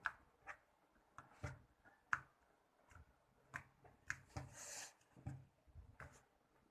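Clay slime being handled and stretched in the hands: faint, irregular sticky clicks and soft squishes.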